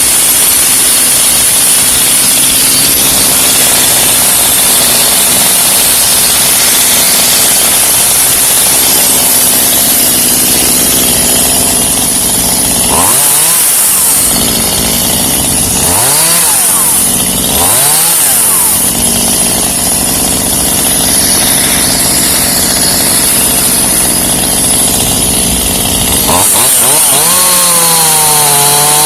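Chainsaw running at full throttle cutting through pecan wood. Its engine pitch dips and climbs back several times in the middle, and near the end it falls and holds at a lower steady pitch.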